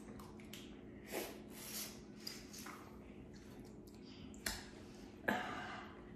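Boiled crawfish being peeled and cracked by hand and eaten: scattered short cracks, clicks and wet smacks, the loudest a sharp one about five seconds in, over a steady low hum.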